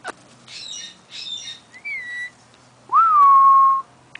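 White-bellied caique calling: two short raspy squawks, then a brief whistle, and about three seconds in a loud whistle that swoops up and settles on one steady note for nearly a second.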